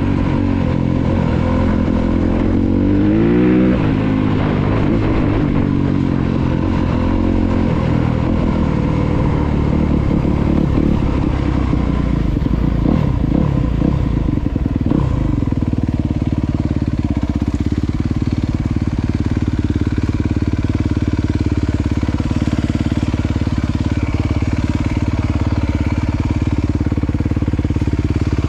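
Honda CRF250RX dirt bike's 250 cc single-cylinder four-stroke engine, revving up and down as the bike slows, then settling to a steady idle about halfway through once it has stopped.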